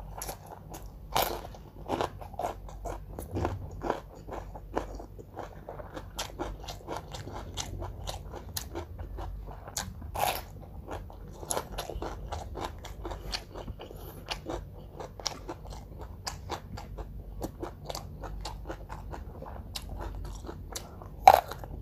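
A person biting and chewing crunchy food close to the microphone: a dense run of crunches, with louder bites about a second in, about ten seconds in and near the end.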